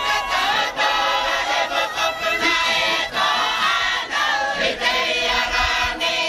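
A large group of men and women singing together in chorus, loud and continuous.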